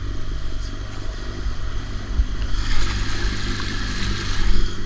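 A 9.9 hp outboard motor pushes an inflatable dinghy along at a steady, even pitch. Water rushes and splashes along the hull and wake, growing louder about halfway through.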